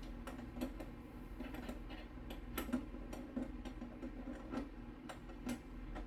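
Irregular light clicks and taps, a few a second, of small hardware being handled and fitted on a desktop motherboard.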